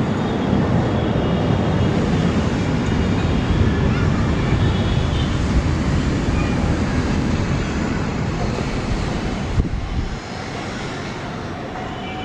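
Distant twin-engine jet airliner at takeoff power during its takeoff roll: a steady, deep engine rumble, dropping a little in level about ten seconds in.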